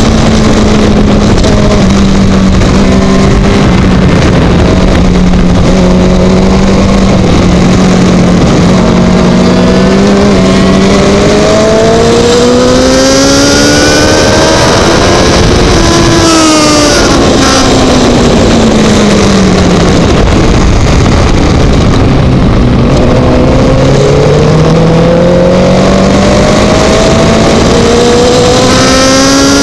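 Racing motorcycle engine heard from an onboard camera under a constant rush of wind. The engine note holds fairly steady at first, revs higher through the middle, drops away just past halfway, then climbs again near the end.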